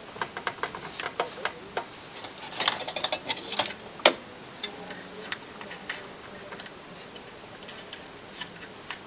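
Plastic and metal parts of an indoor TV aerial clicking and rattling as they are handled and fitted back together. The clicks come in quick, uneven runs, with a dense clatter a few seconds in and one sharp click just after it.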